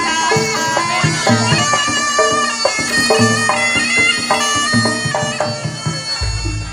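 Traditional Javanese dance music: a shrill, reedy wind instrument playing a stepping melody over steady drumming.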